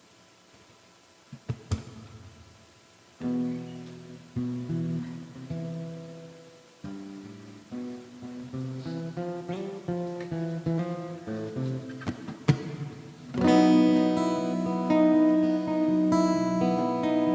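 Acoustic-electric guitar. After a couple of faint clicks, single notes are picked from about three seconds in, then full strummed chords come in loudly near the end.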